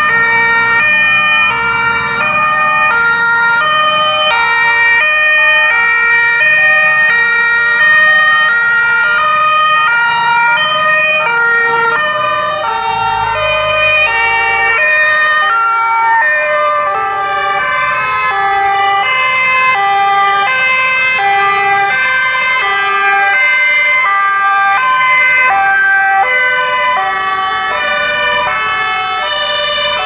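Two-tone sirens (German Martinhorn) on fire engines driving past on an emergency run. Two or more sirens sound at once, out of step, each stepping back and forth between a high and a low note.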